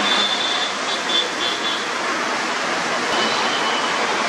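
Steady traffic noise from cars, auto rickshaws and trucks, their tyres hissing on a wet road. A thin high tone comes and goes in the first two seconds and again just after three seconds.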